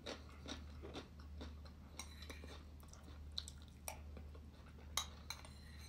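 Quiet chewing of a mouthful of rice with scattered small clicks from the mouth and a metal spoon, over a steady low hum.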